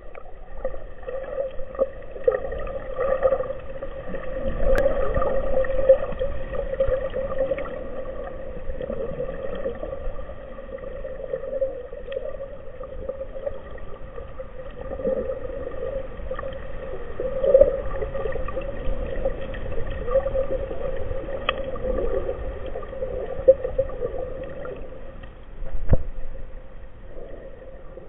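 Underwater sound picked up by a camera in its waterproof housing: a steady droning hum with low water rumble and a few sharp clicks.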